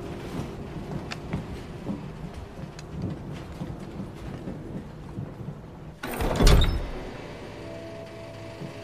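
Dark, rumbling film-soundtrack ambience with scattered small knocks, broken about six seconds in by a sudden loud, deep boom lasting about a second, which gives way to a steady drone of several held tones.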